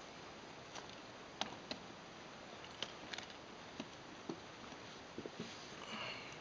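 Footsteps and trekking-pole tips knocking on the planks of a wooden footbridge: irregular light clicks and dull thuds over a steady hiss, with a short rustle near the end.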